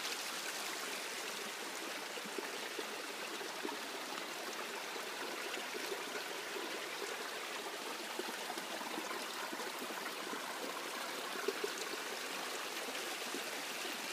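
Small shallow stream trickling steadily over stones.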